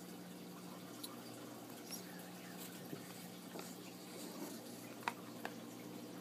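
Pages of a paperback travel guide being flipped and the book handled: soft paper rustling and light taps. Two sharper ticks come about five seconds in, over a faint steady low hum.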